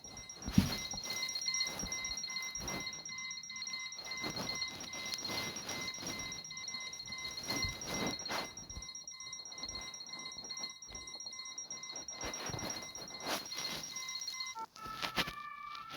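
An electronic alarm sounding a high, rapidly pulsing tone, with irregular knocks and clatter over it. Near the end it cuts off and a different alarm starts, a short tune of stepped electronic tones.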